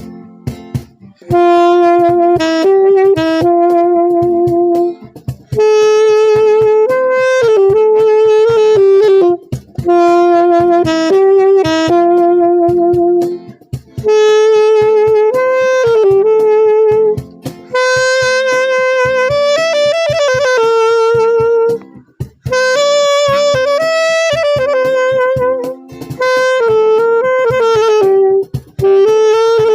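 Saxophone playing a slow melody in phrases of long held notes with short breaks between them, over a guitar accompaniment.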